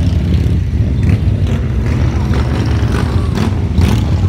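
Many motorcycle engines running as a large group of bikes rides past in a procession, a steady low rumble.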